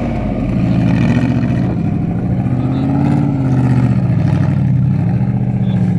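Off-road vehicle's engine revving up and down under load, its pitch rising and falling several times before holding steadier near the end.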